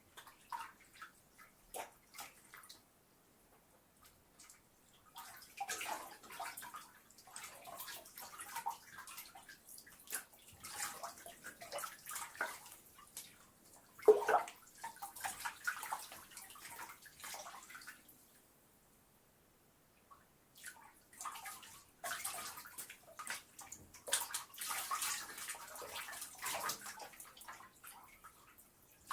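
Bathwater splashing and sloshing in a tub as a person moves and washes, in irregular bouts with a short pause in the middle and one sharper, louder splash about halfway through. A few small drips come early on, before the splashing starts.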